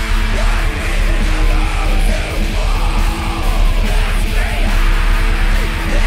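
Loud heavy metal music with yelled vocals over fast, driving drums.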